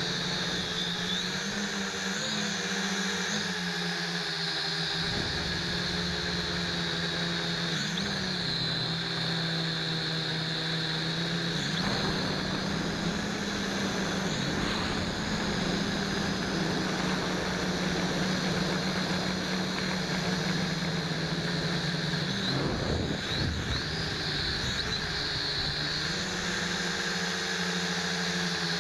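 MJX X500 quadcopter's motors and propellers whining steadily in flight, the pitch rising and falling several times as the throttle changes.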